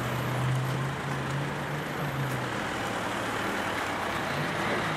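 Motor vehicle engine running with a low steady hum that fades about halfway through, over a steady wash of road traffic noise.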